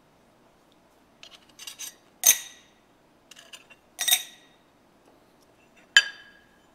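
Steel parallels clinking and scraping against the steel jaws of a Kurt milling vise as they are set in and moved: some light scraping, then three sharp clinks that ring briefly.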